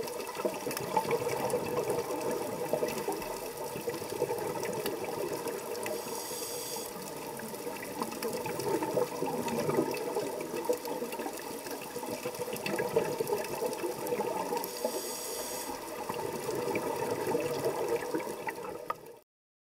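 Underwater bubbling and gurgling from a scuba diver's breathing, with two short hisses about six and fifteen seconds in. It cuts off suddenly just before the end.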